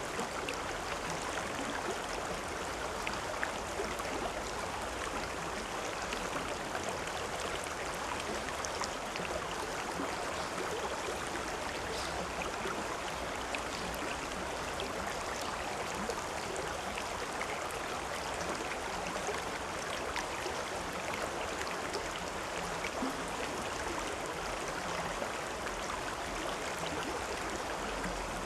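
Stream water flowing and splashing steadily over rocks, with small splashes and trickles scattered through it.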